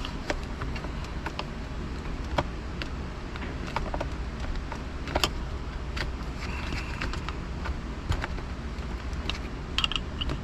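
Plastic interior trim around a car's handbrake lever being slid and pressed into place: scattered sharp clicks and knocks over a steady low hum.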